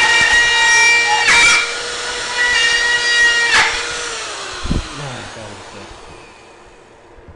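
Power tool running with a steady whine, broken twice by a brief sharp sweep, then winding down in pitch and fading out over the last few seconds.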